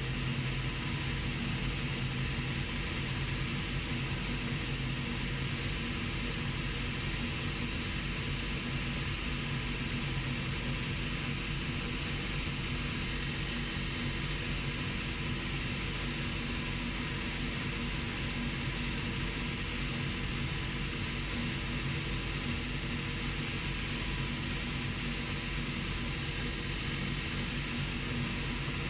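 Shoe finishing machine running steadily, a footbed held against its spinning abrasive wheel to sand the edge, with an even whir.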